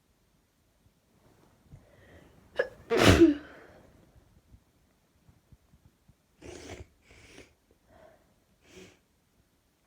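A person's sneeze about three seconds in: a quick catching inhale, then one loud sneeze. Four short, much quieter breaths follow over the next few seconds.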